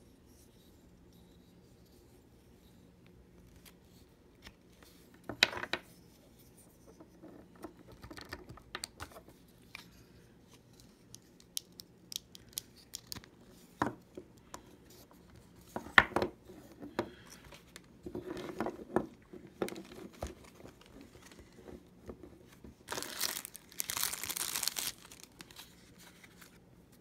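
Wooden lamp-stand pieces being handled and pushed together, giving scattered light wooden clicks and knocks. Near the end comes about two seconds of crinkling, tearing noise.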